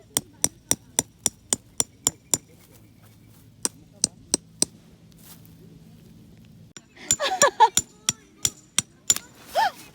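Metal tent pegs being hammered into the ground: rapid, evenly spaced ringing clinks, about three or four a second, that pause after a couple of seconds, resume in shorter runs, and are joined near the end by a brief pitched vocal sound.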